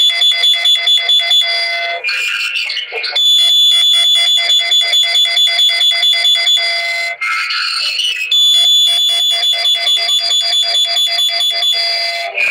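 Olympus Note Corder DP-201 digital voice recorder playing back a recording through its small speaker. The playback is a rapid electronic beeping, about six pulses a second, like an alarm. The beeping breaks twice, about two seconds and about seven seconds in, into a short warbling stretch.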